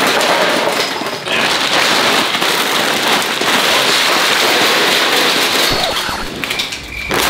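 Raw, dry kerupuk crackers rattling and rustling as they are handled and poured out of their plastic packs: a dense, continuous crackle with brief lulls about a second in and near the end.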